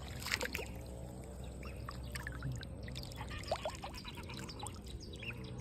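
Water dripping and trickling in quick irregular drops and small splashes.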